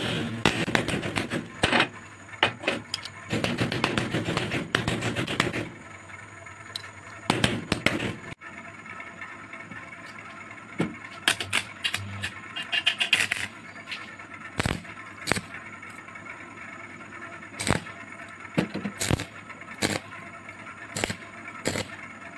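Hammer rapidly striking a steel plate clamped in a bench vise for the first several seconds. After a cut, a stick welder's arc sizzling as the plate is tacked to a steel rod frame, with sharp clicks at irregular intervals.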